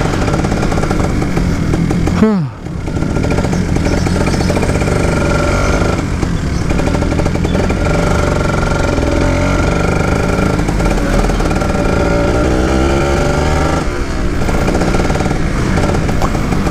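Two-stroke engine of a 2011 Kawasaki Ninja SE motorcycle running while being ridden. About two seconds in the revs fall sharply for a moment, then pick back up to a steady run.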